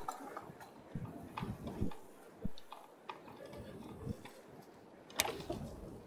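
Folding bicycle rattling and clicking as it rides along a paved bike path, in irregular knocks; the sharpest knock comes about five seconds in.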